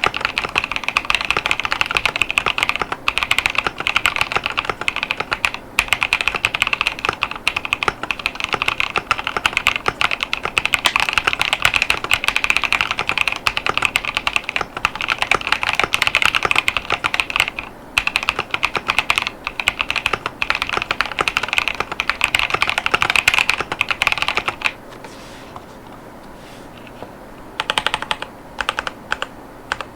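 Fast, continuous typing on a mechanical keyboard with Kailh Clione Limacina tactile switches and PBT OEM-profile keycaps. There are a few very short pauses, then a stop of about three seconds near the end before a few scattered keystrokes.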